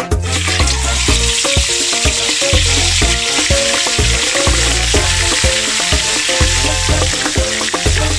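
Whole tilapia deep-frying in hot oil in a wok: a loud, steady sizzle. Background music with a steady bass beat plays underneath.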